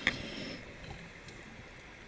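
Underwater sound of a scuba diver's breathing, picked up by the camera housing: a sharp click right at the start, then a regulator hiss that fades about half a second in, leaving a low, quiet water rush.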